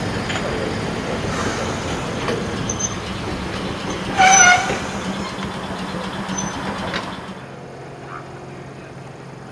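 Adelaide H type electric tram rolling slowly on its rails, a steady rumble that dies away about seven seconds in as it comes to a stop. About four seconds in there is one brief, loud pitched tone lasting about half a second.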